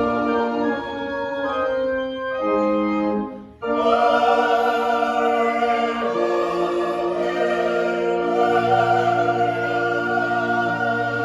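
Church music: organ chords held under choir voices. The music drops out briefly about three and a half seconds in, then comes back fuller.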